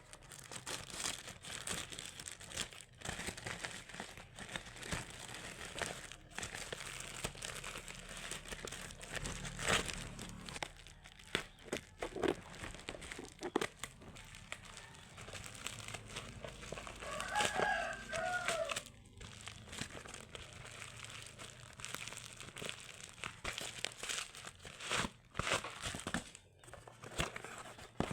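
Jewellery packaging crinkling and rustling in irregular bursts as it is unwrapped by hand. A rooster crows once, about two thirds of the way through.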